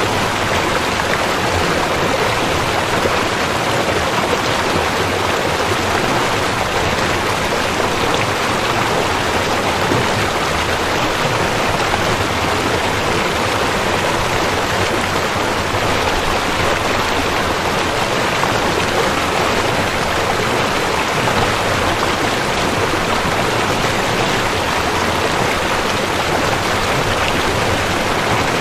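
Steady rush of flowing river water, an even wash of noise with nothing standing out from it.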